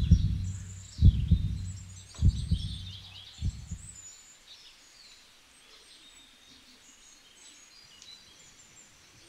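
Heartbeat sound effect: deep double thumps a little over once a second, fading out about four seconds in. Birds chirp throughout.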